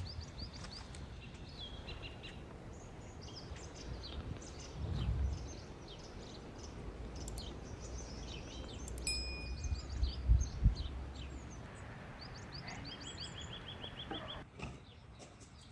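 Small birds chirping on and off, with a short, evenly repeated trill near the end, over a low outdoor rumble. A couple of low thumps come about five and ten seconds in, the second the loudest.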